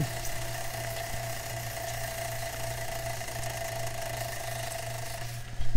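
Aerosol can of brake cleaner spraying a camshaft in one steady hiss for about five seconds, cutting off shortly before the end, over a constant low hum. A few loud knocks follow right after the spray stops.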